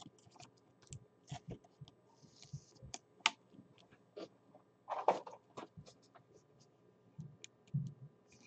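Faint handling noise of a trading card and clear plastic card holders: irregular small clicks and taps of plastic, with a brief louder swish about five seconds in as the card is worked into a rigid top loader.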